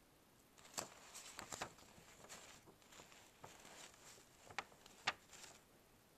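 Faint handling noise from a handheld camera and a sheet of paper: a few short clicks and soft rustles, the sharpest about a second in and about five seconds in, over a faint high whine.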